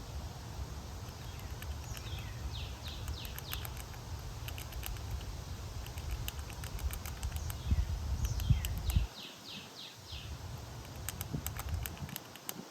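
A songbird singing two phrases, each a quick run of repeated downslurred whistled notes, with scattered sharp clicks throughout. A low background rumble cuts off about nine seconds in.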